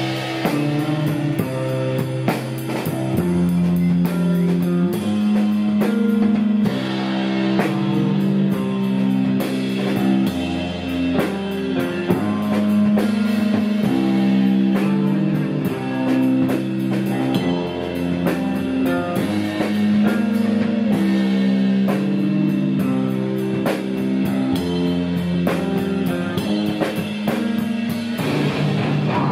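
A rock band playing live: electric guitar and bass guitar holding notes that change every second or two over drum kit beats and cymbal hits.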